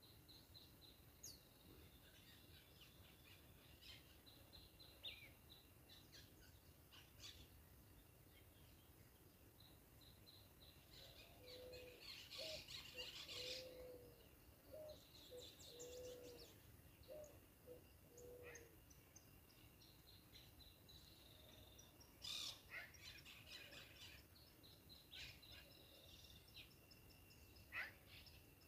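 Faint birdsong: scattered high chirps and trills over quiet outdoor ambience, with a run of short, low, repeated calls around the middle.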